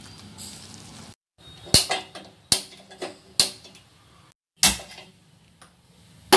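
Brief faint stirring of a moong dal batter in a bowl, then after a break several sharp metallic clanks and clicks from a wok of oil on a gas stove, some ringing briefly.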